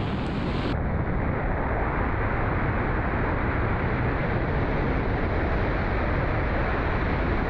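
Steady rushing wind buffeting a camera microphone during a BASE jump freefall along a cliff face.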